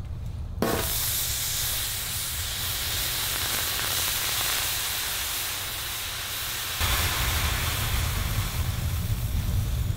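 Water hissing and steaming as it boils off the hot steel top of a wood-burning camp stove; the hiss starts suddenly about half a second in. A low rumble runs underneath and grows louder near the end.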